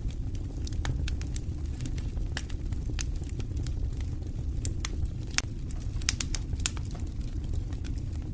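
Wood fire burning in a fireplace: frequent, irregular sharp crackles and pops over a steady low rumble of the flames, with a few louder pops past the halfway point.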